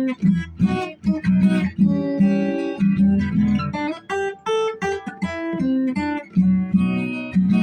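Acoustic guitar playing an instrumental passage, a quick run of picked notes over bass notes.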